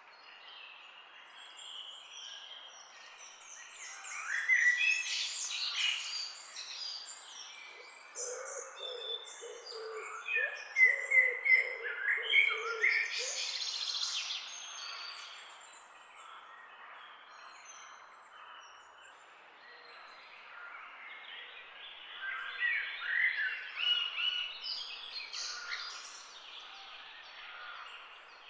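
Several wild birds chirping and singing over a faint outdoor background hiss, with bursts of calls about four seconds in, busiest around ten to fourteen seconds, and again near twenty-three seconds. A run of lower repeated notes sounds under the chirps from about eight to thirteen seconds.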